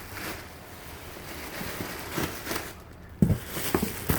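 Handling noises: dresses and their packaging rustling as they are moved, with one sharp knock about three seconds in.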